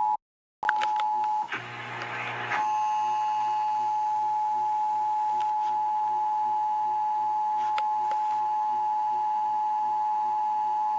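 Emergency Alert System two-tone attention signal, 853 and 960 Hz sounded together. It cuts out briefly just after the start and gives way to a short hissy burst about a second and a half in. Then it holds steady for about eight seconds, marking the start of a glitched weekly EAS test that is replaying.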